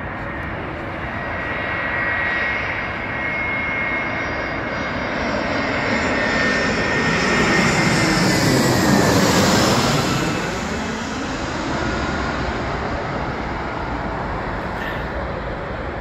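Twin-engine jet airliner on final approach with its landing gear down, passing low overhead. The engine noise builds to its loudest about nine seconds in, with a high whine that drops in pitch as the aircraft goes over, then eases off.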